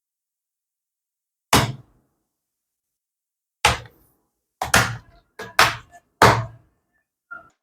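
A handful of irregular knocks and thunks, about seven, some in quick succession, from the laptop being handled.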